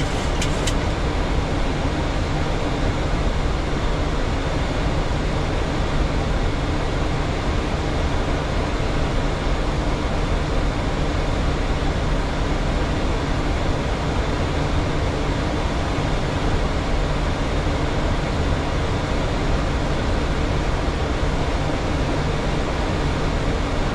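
Steady cockpit noise of a Boeing 737 in flight, an even rushing hiss and rumble that stays at one level throughout.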